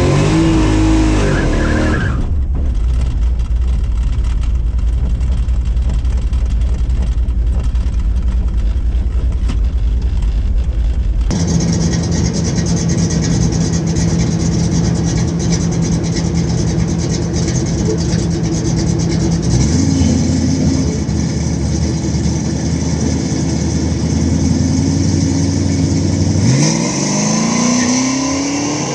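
Drag-racing car engine running, first as a deep steady rumble, then, after an abrupt change about eleven seconds in, as a steadier higher drone. Near the end the engine revs up in rising sweeps as the car accelerates.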